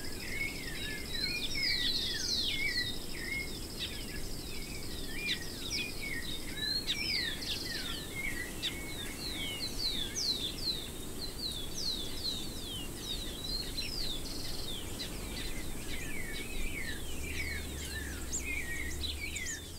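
Chorus of many small birds chirping and calling over each other in quick, sweeping notes, with a thin steady high buzz underneath for the first six seconds or so.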